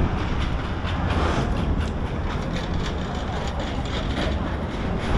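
Outdoor street ambience picked up by a walking camera: a steady low rumble with many light, irregular taps and clicks on top.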